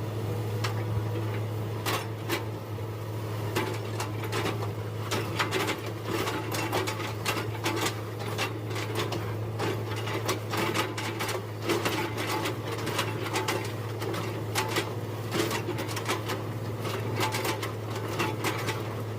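Excavator engine running with a steady low hum while its bucket chops up a felled oil palm trunk, with frequent irregular cracking and knocking of wood.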